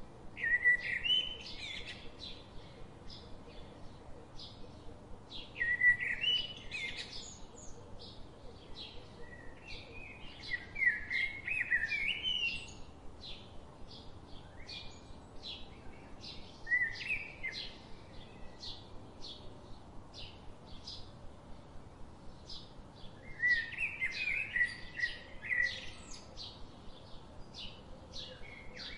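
Woodland birds singing. Short warbled song phrases come every few seconds over a steady run of short, high chirps repeated about twice a second.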